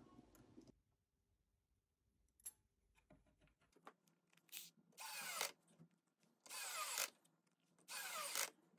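Small cordless screwdriver driving screws through a metal D-ring hanging bracket into the wooden back of a picture frame: three short runs of the motor, each about half a second, starting about five seconds in, after a few faint clicks of handling.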